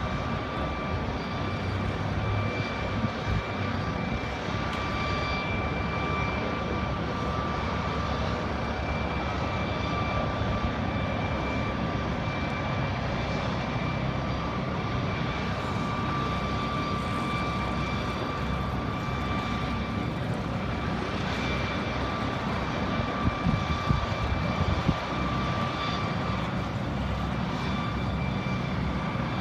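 Helicopter running steadily in a hover, a continuous turbine whine over the low beat of the rotor. A few brief louder bumps come near the end.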